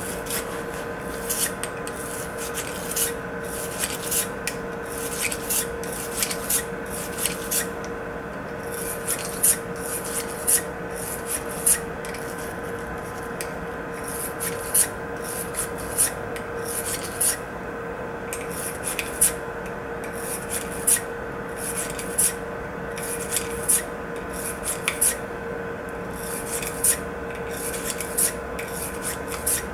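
Metal cleaning rod scraping back and forth through a Glock 43's 9mm barrel wrapped in a cloth: repeated short rubbing strokes, irregularly spaced, over a steady hum.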